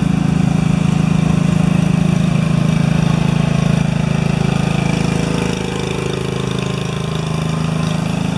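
An engine idling steadily with a low, even drone, growing slightly quieter about five and a half seconds in.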